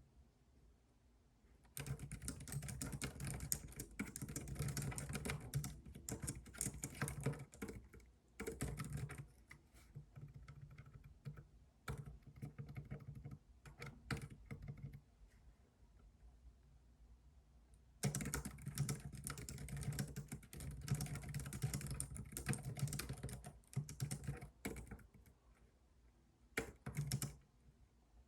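Computer keyboard typing in two long fast runs of keystrokes, with scattered single taps and a short pause between them.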